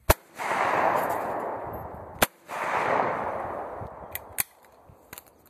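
Two shotgun shots about two seconds apart, each trailing off over a second or so. This is a report pair at sporting clays: the second clay is thrown at the sound of the first shot.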